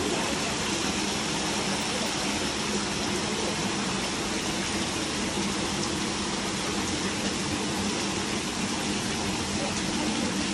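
Rushing water running steadily, an unbroken even rush with no breaks.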